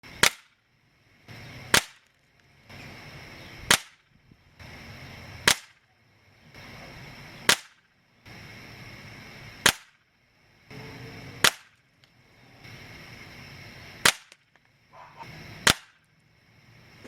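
Crosman 362 .22 caliber multi-pump pneumatic air rifle being pumped. Each of nine strokes, about two seconds apart, is a rising rush of air that ends in a sharp click as the pump lever shuts.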